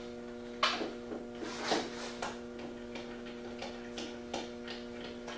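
Small hand screwdriver working the screws in a DJI Phantom's plastic arm, giving a string of light clicks and ticks, sharper ones about half a second and a second and a half in, then lighter ticks about three a second. A steady electrical hum runs underneath.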